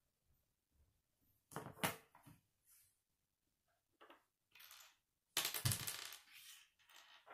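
Plastic K'nex rods and connectors clicking and clattering against each other and on a wooden table as the model is handled and set down. There are sharp clicks about two seconds in, then a longer rattle with a dull thud past the middle.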